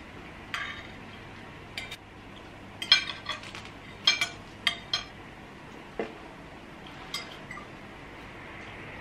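Metal knives and forks clinking against ceramic dinner plates as people eat, in a scatter of short, sharp, ringing clinks that bunch together around the middle.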